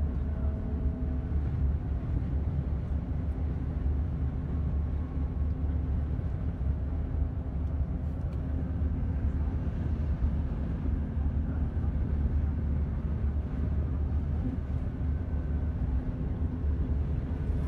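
Steady engine and road noise heard from inside the cabin of a moving road vehicle, a constant low rumble with a faint steady hum.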